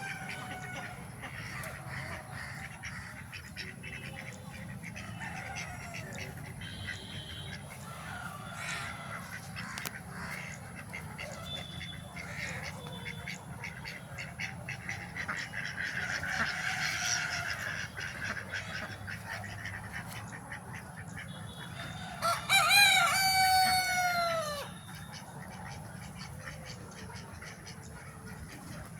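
Free-range country chickens clucking and calling, with a rooster crowing once, loudly, for about two and a half seconds about three-quarters of the way through.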